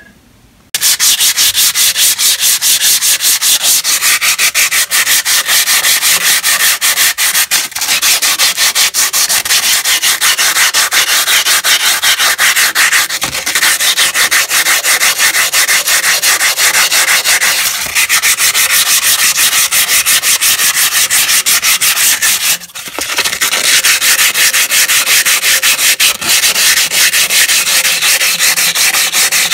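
Sandpaper (220 grit) rubbed by hand in quick back-and-forth strokes on a cast iron drain pipe, scouring off surface rust. It starts just under a second in and keeps going, with one brief pause about two-thirds of the way through.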